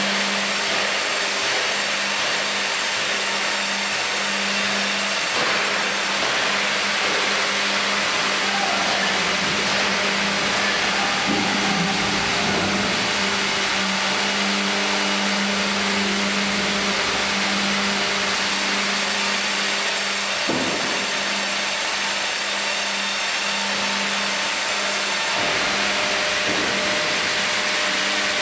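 Sawmill line of a Fimaksan Fi.120 tandem band saw and Fi.130 hydraulic log carriage running: a steady machine hum under loud hiss, the hum breaking off and coming back a few times.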